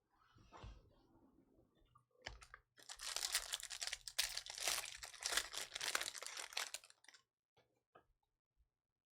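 A trading-card pack wrapper being torn open and crinkled, loudest from about three to seven seconds in, followed by a few soft clicks.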